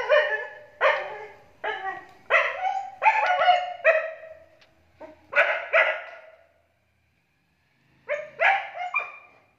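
A dog barking repeatedly in short, sharp barks, about one a second with a few doubled. After a pause of a second or so, three quicker barks come near the end.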